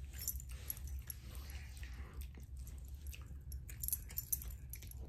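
A small dog chewing a crunchy kibble treat: irregular faint crunching clicks over a low steady hum.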